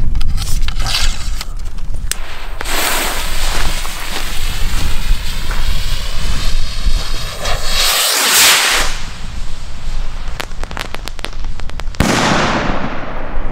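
Funke Gigant-Salut F3 sky rocket: the lit fuse hisses for several seconds, the rocket goes off with a loud rush about eight seconds in and crackles as it climbs, then its salute bursts with a sharp bang near the end.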